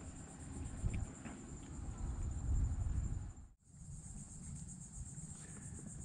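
Steady high-pitched drone of an insect chorus with a fine, fast pulse, over a low rumble that swells about two and a half seconds in. Everything cuts out for a moment just past halfway, then the insect drone resumes.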